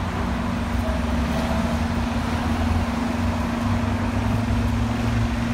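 City bus standing at a stop with its engine idling: a steady low drone under a constant hum.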